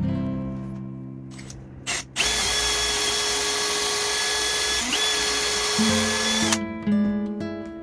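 Electric drill running at a steady whine for about four seconds, with a momentary dip partway through, over acoustic guitar background music.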